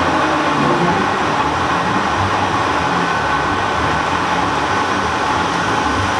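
Loud, steady hiss and rumble of a running paper machine in its hall, the dryer-section cylinders turning. The noise stops suddenly at the end.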